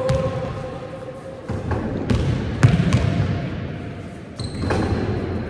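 Basketballs bouncing on a sports-hall floor, several separate thuds over the first three seconds. Near the end, a short high squeak.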